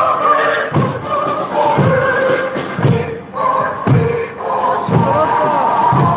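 A big drum beating a steady march rhythm, about one stroke a second, under voices singing a march song.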